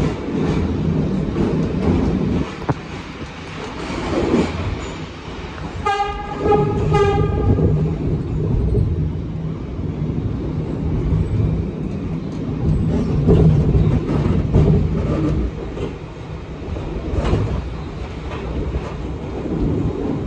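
New York City subway 1 train running through a tunnel, heard from inside the car: a steady rumble of wheels on rail with irregular clatter. Two short horn blasts sound about six and seven seconds in.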